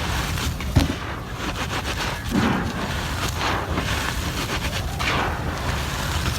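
Gritty cement chunks crumbling and crunching, with repeated grainy crunches and a sharp knock about a second in.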